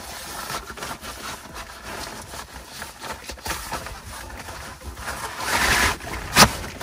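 Fabric rustling as a rolled-up, deflated air mattress is handled and stuffed into its storage sack, louder about five seconds in, with a short sharp knock near the end.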